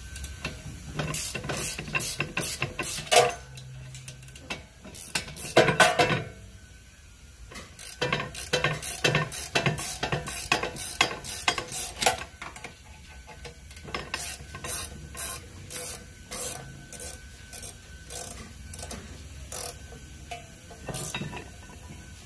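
Hand ratchet wrench clicking in quick runs of strokes, backing out a rear brake caliper bracket bolt.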